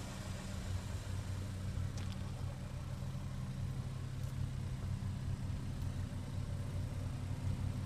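Chevrolet Equinox SUV's gasoline engine idling steadily at a low, even pitch.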